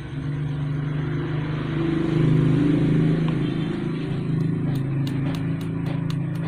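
A motor vehicle engine running steadily, swelling louder about two seconds in. Light high ticks repeat about three times a second over the last two seconds.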